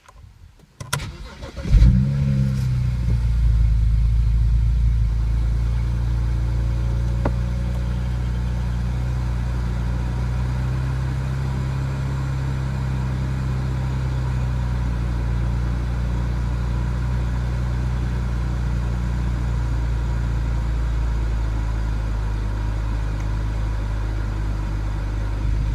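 BMW N54 twin-turbo straight-six cold-starting: a couple of clicks, then the engine catches about two seconds in and settles into a fast cold idle that drops a little lower after about fifteen seconds. The owner suspects the idle carries an intermittent misfire.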